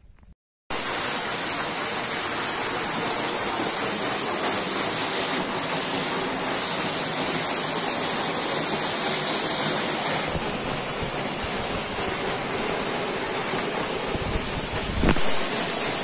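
Steady rush of flowing water from a mountain stream and waterfall, cutting in abruptly just under a second in and growing a little louder near the end.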